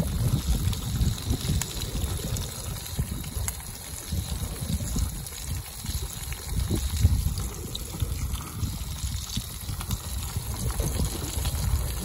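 Watery trickling and bubbling under a low, uneven rumble of wind on the microphone that swells and fades.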